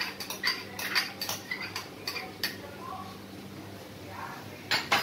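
A spoon clinking and scraping against a bowl as chopped onions are knocked out into a pan of mutton: a quick run of knocks in the first two seconds or so, then a pause and a couple more near the end.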